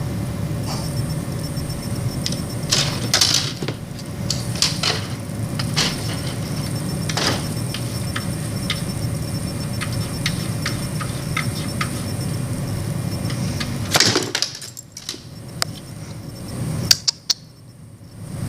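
A cat's claws scratching and tapping at a humidifier: scattered short scrapes and ticks over a steady hum, with a louder scrape about fourteen seconds in, after which the hum falls away and a few sharp clicks follow.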